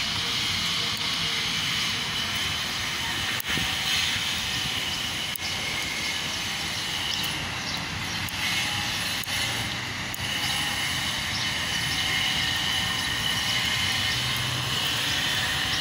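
Steady outdoor background noise of street traffic, with a few faint clicks.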